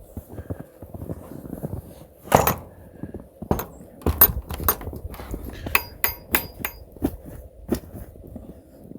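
A series of sharp knocks and metallic clinks, about a dozen over the last six or seven seconds, as buildup at the bottom of an automatic livestock waterer that will not close is knocked loose.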